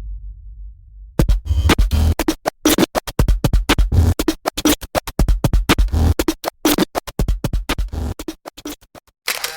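DJ record-scratch effect: fast, choppy turntable scratching over heavy bass hits, starting about a second in and stopping shortly before the end. A low rumble fades out at the start, and a wavering pitched sound begins right at the end.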